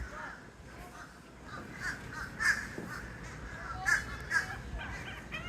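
Crows cawing repeatedly, with a few louder caws in the second half.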